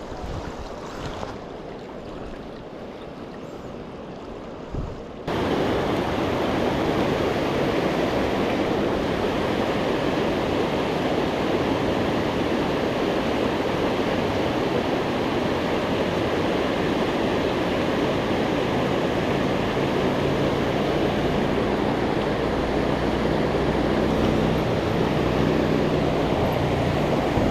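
Mountain river water rushing steadily. About five seconds in it turns abruptly louder and then holds steady.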